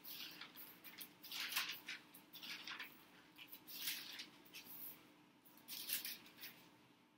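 Thin Bible pages being turned by hand: a handful of short paper rustles and flicks, the loudest about a second and a half in.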